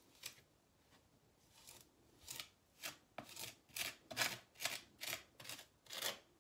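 Metal putty knife scraping across vinyl tile as it presses and smooths grout into the joints, in quick short strokes, two or three a second. The strokes begin about two seconds in.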